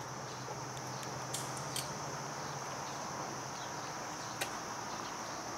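Steady high insect chirring over a low steady hum, with a few faint clicks; no horn is sounded.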